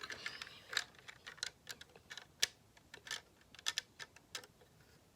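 Plastic Lego pieces clicking and knocking together in irregular sharp clicks as the puzzle box's key is handled and set back in place. The clicks stop about four and a half seconds in.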